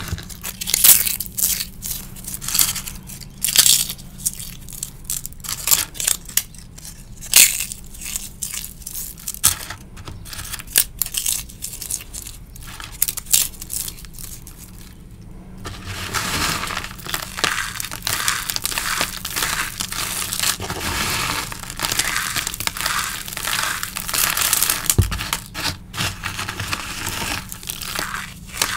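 Hands crushing dried homemade chalk pieces, cornstarch and calcium-carbonate chalk mixed with crumbled dried leaves, in a plastic tub. The first half is separate sharp crunches and snaps; about halfway it turns into a denser, continuous crumbling as pieces are ground in the palm.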